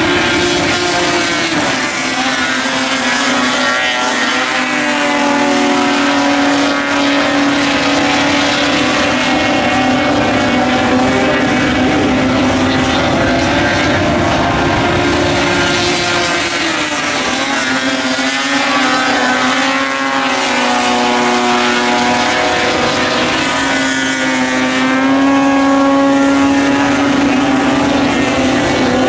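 Several dirt-track race cars running together, their engines rising and falling in pitch as they come on and off the throttle through the turns and down the straights, with a broad wash of engine and tyre noise underneath.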